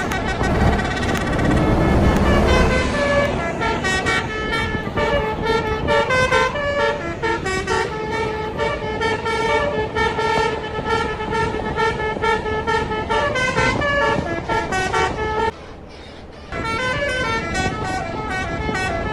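Bus 'telolet basuri' musical air horn playing a melody, its notes stepping quickly from pitch to pitch, over the noise of the bus engine. The horn breaks off for about a second near the end, then starts again.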